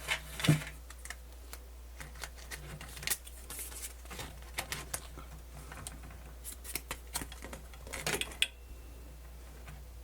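Irregular light clicks and clatter from the tape transport mechanism of a Luxman KX-101 cassette deck being worked by hand, over a faint low hum that comes and goes.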